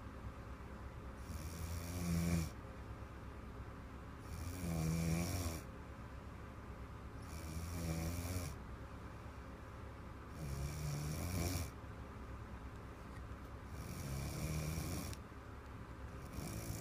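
A little girl snoring in her sleep, a big rough snore lasting about a second and coming back about every three seconds, five times.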